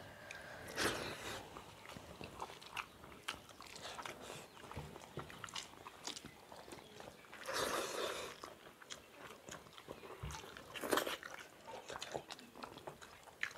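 Two people eating rice and fish curry by hand from steel plates: chewing and biting sounds with scattered small clicks of fingers working the rice on the plates. Three louder noisy mouth sounds stand out, about a second in, near eight seconds and near eleven seconds.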